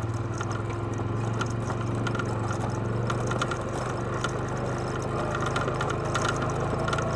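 ATV engine running steadily at a low, even speed on a descent over a loose rocky trail, with scattered clicks and rattles as the machine jolts over the stones.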